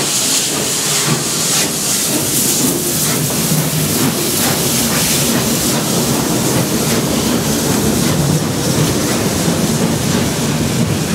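Steam locomotive passing close at low speed, hissing steam from its cylinder drain cocks, with exhaust beats about twice a second. Its tender and coaches then roll by, wheels clacking over the rail joints.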